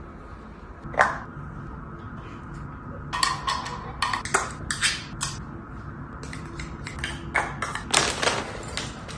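A series of sharp clicks and light knocks from small hard objects: one about a second in, a run of them in the middle, and another cluster near the end.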